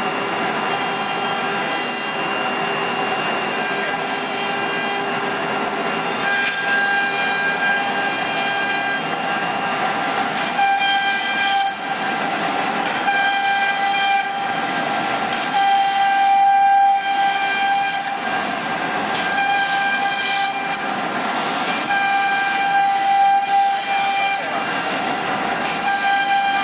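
The spindle of a 1325 CNC router whines steadily as its bit engraves a board. A rougher cutting sound swells and fades every few seconds as the head works through its passes.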